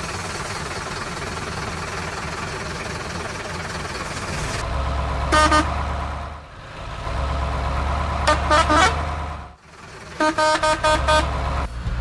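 Truck sounds: a truck engine rumbling, with a horn tooting in short blasts. One toot comes about five seconds in, a quick run of toots follows a few seconds later, and a longer run of rapid toots comes near the end.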